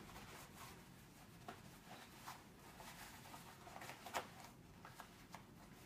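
Faint rustling and scuffing of an Air Force ABU uniform sleeve being folded and rolled up by hand, with scattered soft crinkles of the fabric, the sharpest about four seconds in.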